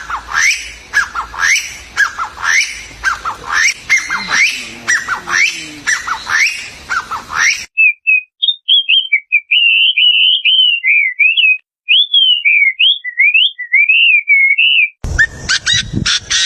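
Birds calling: sharp down-slurred chirps repeated about twice a second over a background hiss, then about seven seconds of a clear, warbling whistled song. Near the end the chirps return over a noisier background.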